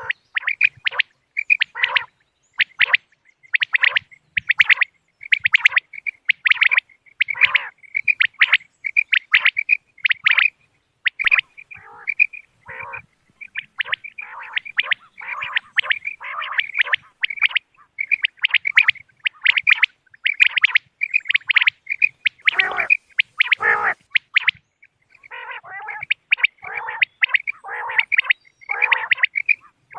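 Common quail calling over and over in short, sharp calls, about two a second.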